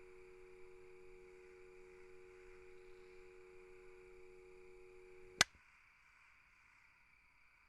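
A faint steady electrical hum of several fixed tones, cut off about five seconds in by a single sharp click, leaving only quiet room tone.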